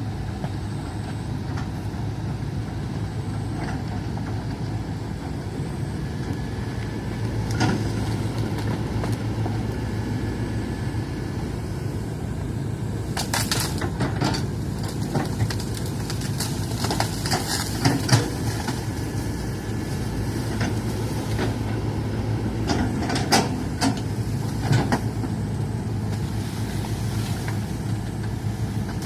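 Hitachi excavator's diesel engine running steadily at a low hum. Scattered knocks and clanks from the working machine come through in several clusters, the loudest in the second half.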